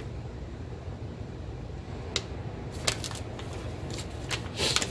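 Paper instruction sheet and plastic blister packaging rustling and crinkling in hands, in several short crackles from about two seconds in, loudest near the end. Underneath runs the steady low drone of an air conditioner.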